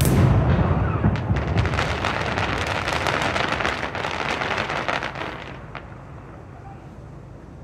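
Aerial firework shell bursting loudly, followed by a dense crackle of many small pops as its glittering stars fall, thinning out and dying away about six seconds in.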